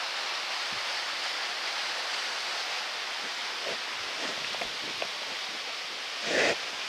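Steady rushing of a waterfall, with a few faint knocks partway through and a brief louder rustle near the end.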